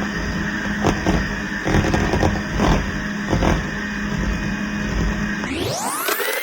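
Electric mixer running steadily as it beats egg whites, with occasional knocks of the beaters against the bowl. Near the end the motor speeds up with a rising whine and holds at the higher pitch.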